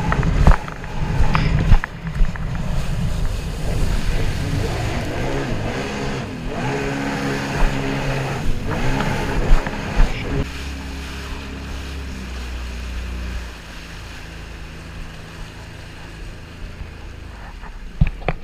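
Jet ski engine running under throttle, its pitch rising and falling, with water slapping the hull. About halfway through it throttles back to a lower, steadier note, and it drops again a few seconds later as the craft slows.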